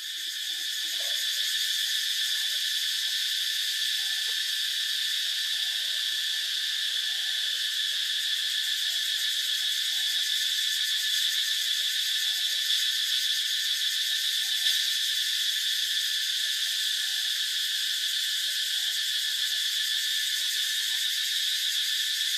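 Steady, high-pitched insect chorus, a continuous unbroken drone.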